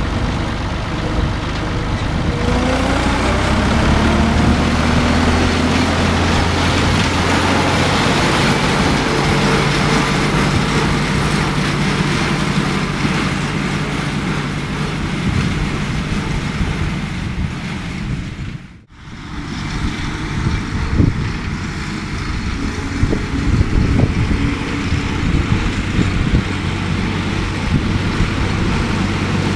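John Deere 1030 tractor's three-cylinder diesel engine revving up as it pulls away, then running steadily under power. After a brief drop-out about two-thirds through, it runs on farther off while mowing with a drum mower.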